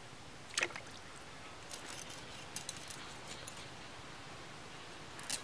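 Short crisp scrapes and clicks as pieces of fish are sliced against a boti, the fixed curved blade of a Bengali kitchen. The loudest cut comes about half a second in, smaller ones in a scattered run between two and three and a half seconds, and another just before the end.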